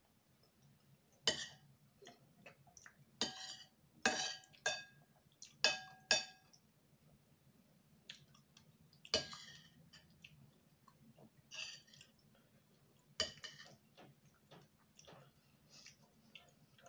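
Cutlery clinking against a dish about nine times at irregular intervals while eating soup, some strikes ringing briefly.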